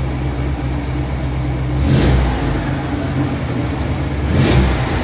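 1979 Alfa Romeo Alfetta engine idling and blipped twice, about two seconds in and again near the end, the revs rising and falling back each time: the car clearing her throat.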